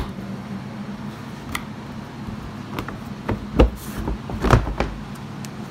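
Plastic hood panel of a Polaris RZR XP Turbo being unclipped and lifted off: a string of clicks and hollow plastic knocks, the loudest a little after three and a half seconds and again about four and a half seconds in. A steady low hum runs underneath.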